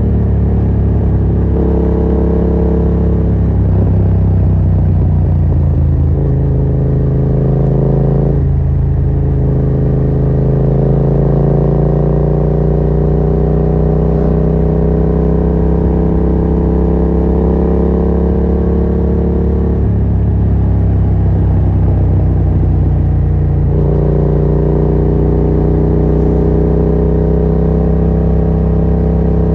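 Yamaha MT-07's 689 cc parallel-twin engine running through a Yoshimura R77 exhaust with the dB killer removed, under way on the road. The engine note breaks and drops in pitch several times, about 8 seconds in, around 20 seconds and again near 24 seconds, and climbs slowly in between.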